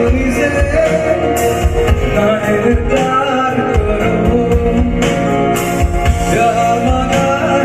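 Rock-style song with singing, guitar and a steady drum beat.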